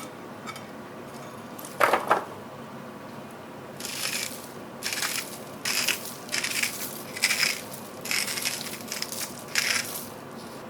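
Hands-on kitchen food preparation: a single knock about two seconds in, then a run of about eight short, crisp crunching strokes, each under half a second.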